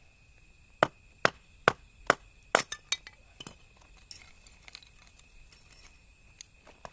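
Sharp knocks of wood being struck, six in quick succession at about two a second, then lighter scattered clicks and crackles.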